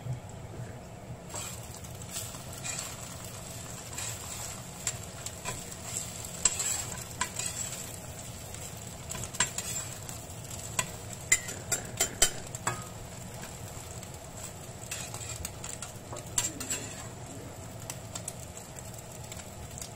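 Thai omelette (beaten egg) frying in hot oil in a cast-iron pan, sizzling steadily, while a wooden spatula and a turner scrape and knock against the pan as the omelette is broken up and turned; the sharpest knocks come in the middle.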